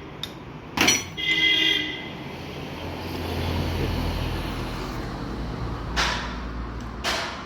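Sharp knocks in the Maruti Swift Dzire's steering and front suspension as the steering is worked for play: one about a second in and two near the end, with a low rumble in between.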